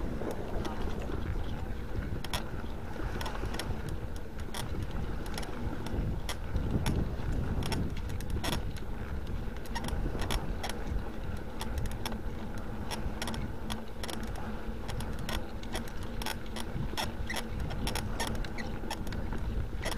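Bicycle riding over a rough sandy track, with frequent irregular clicks and rattles from the bike and wind rumbling on the handlebar-mounted microphone.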